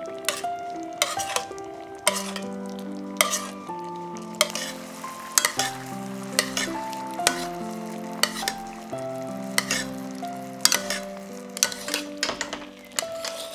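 Dark sauce sizzling in a stainless steel pan while a metal spoon basting the daikon slices clinks and scrapes against the pan every second or so. Soft background music plays with held notes.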